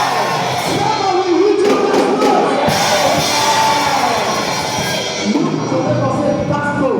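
Loud congregational music: a congregation singing and calling out together with instruments and drums, with some shouted speech.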